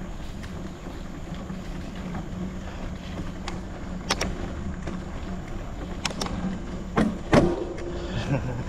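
Gravel bike rolling over rough off-road ground: a steady rumble of tyres with wind on the microphone, and several sharp knocks and rattles from the bike, the loudest two close together about seven seconds in.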